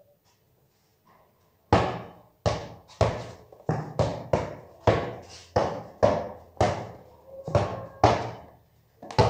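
Basketball being dribbled on a concrete floor, bouncing about twice a second with a short echo off close walls, starting about a second and a half in.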